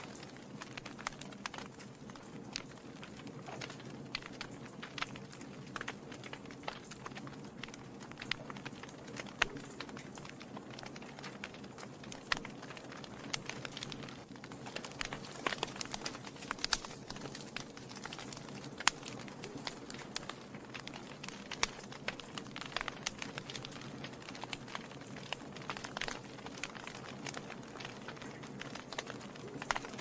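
Wood logs burning in a fireplace, crackling with frequent irregular pops over a steady low rush from the flames.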